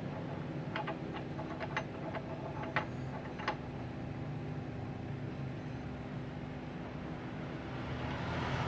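Steady low hum, with several light clicks and ticks in the first few seconds from small tools handling tiny phone parts.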